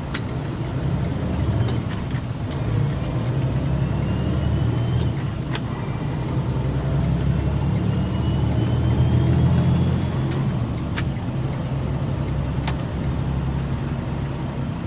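Heavy truck's diesel engine pulling in fourth gear under a smoothly shifting manual transmission, building in level and easing off about ten seconds in. A few sharp clicks are heard over it.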